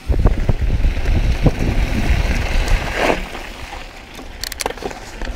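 Wind buffeting the camera microphone and a Yeti SB6c mountain bike rattling over a dirt trail at speed, with scattered sharp knocks from the bike. The rush starts suddenly and drops away after about three seconds.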